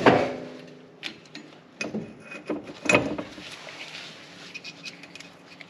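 Metal clanks of the front driveshaft's flange being worked against the front differential's pinion flange: a sharp clank at the start that rings briefly, a few lighter knocks and clicks, and another ringing clank about three seconds in.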